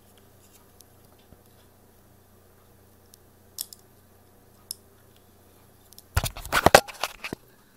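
A phone battery being handled and clipped into a plastic universal battery-charger clip: a couple of small clicks, then a quick run of sharp plastic clicks and rattles about six seconds in as the clip's contacts are set against the battery. A faint steady hum underneath.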